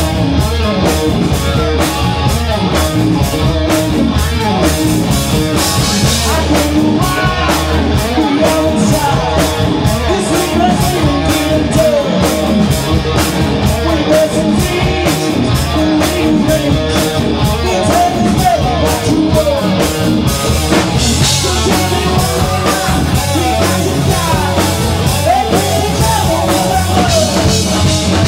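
Live rock band playing loud: electric guitar over a drum kit, with melodic lines bending up and down throughout.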